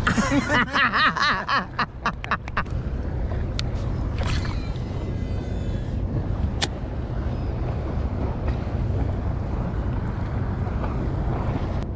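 Steady low wind rumble on the microphone out on open water, with a man's voice briefly at the start and a few faint clicks.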